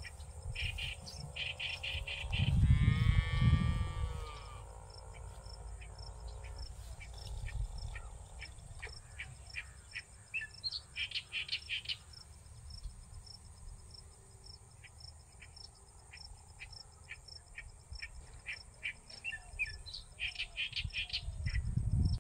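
Insects trilling steadily, with repeated short bird chirps. About two seconds in comes a louder rush with a falling whine lasting about two seconds.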